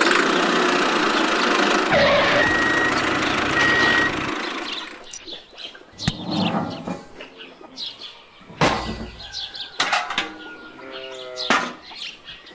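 A loud, steady noise for about the first four seconds, then background music with short bird chirps and a few light clicks.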